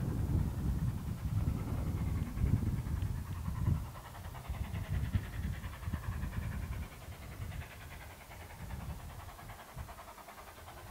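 Gusty wind buffeting the microphone in irregular low rumbles, heaviest for the first four seconds and then easing. A distant steam locomotive is faintly heard approaching.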